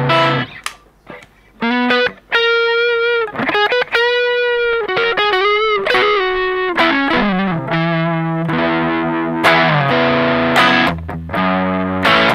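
Electric guitar played through a Vox StompLab multi-effects pedal set to a mildly driven overdrive patch. It starts with a few picked notes, then held lead notes with bends and vibrato, then busier driven chords and riffing in the lower strings for the second half.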